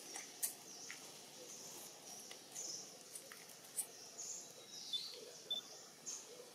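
Faint forest ambience with scattered short, high chirps and a few sharp clicks, and a brief high whistle-like tone about five seconds in.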